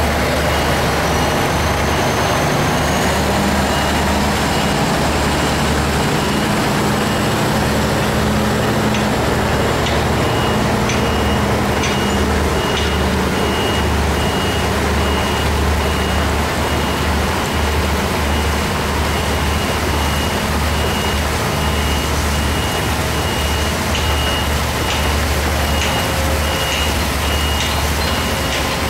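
Heavy diesel engine of a heavy-haul truck and modular trailer running steadily with a low drone, under a high warning beeper that repeats evenly throughout.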